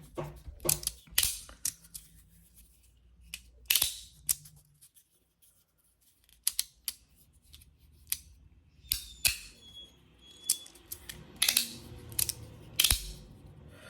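3D-printed magnetic fidget slider clicking as its sliding plates snap from one magnet position to the next, a sharp click-clack, irregular, sometimes two or three in quick succession. The magnets are very strong, so each snap lands hard.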